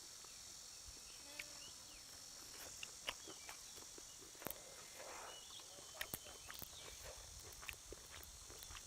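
Steady high-pitched insect chorus, with scattered small clicks and taps and a few short chirps over it.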